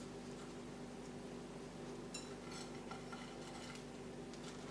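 Faint rustling and small clicks of bark potting media and a plastic pot being handled while an orchid is repotted, over a steady low hum.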